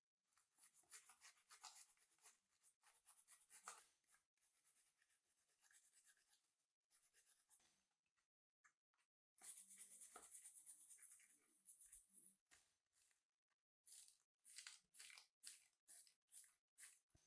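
Quick scratchy rubbing strokes in runs with short pauses, turning into fast separate strokes near the end.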